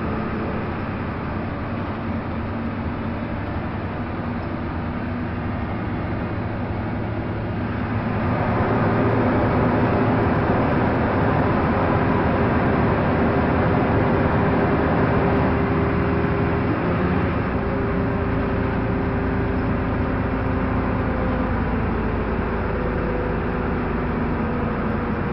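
Inside a moving Jelcz 120M city bus: the engine and road noise carry on without a break. About eight seconds in, the engine note grows clearly louder and stays up, then eases a little after seventeen seconds.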